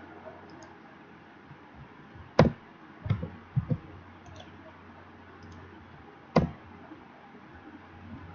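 A few sharp clicks at a computer as a terminal command is entered: one loud click about two and a half seconds in, a short cluster of smaller ones just after, and another loud click past six seconds.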